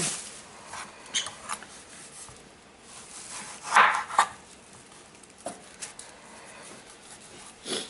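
Kitchen knife cutting tomato pieces on a wooden cutting board: scattered light knocks of the blade on the board, the loudest about four seconds in.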